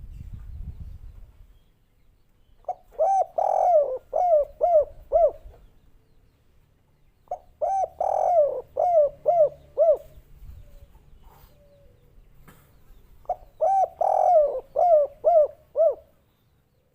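Spotted dove (derkuku/tekukur) of the 'kuk 3' song type cooing: three phrases of about six short rising-and-falling coos each, a few seconds apart. A brief low rumble comes at the start.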